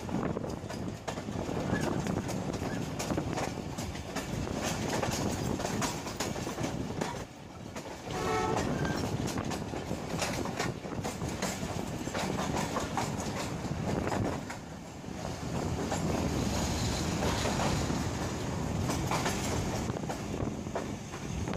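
Passenger train running at speed, heard from aboard a coach: wheels clattering over rail joints with a continuous rumble. A short horn note sounds about eight seconds in.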